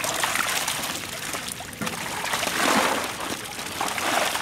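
Water splashing and sloshing in a fishing net crammed with small fish as hands work through the catch in the shallows, a busy patter of small splashes that swells a little past the middle.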